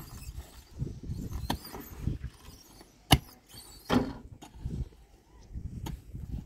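A series of sharp knocks and dull thumps over low rumbling, the loudest knock about three seconds in.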